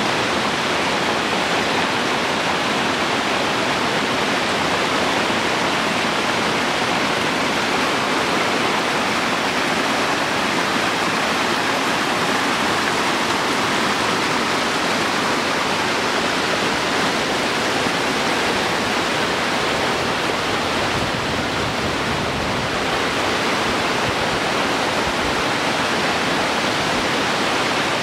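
Small creek rushing over rocky cascades: a steady, unbroken rush of water.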